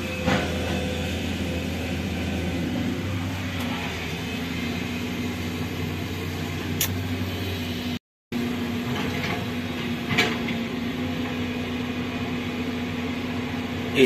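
Excavator diesel engine running steadily, a continuous hum heard from inside the operator's cab. A split-second dropout cuts the sound about eight seconds in.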